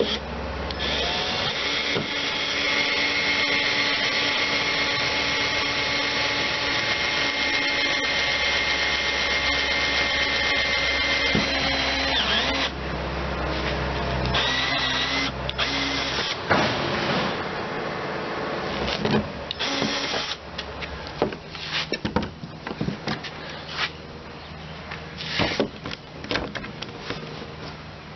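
A small electric motor runs with a steady whine for about eleven seconds, then stops; irregular knocks and clicks follow.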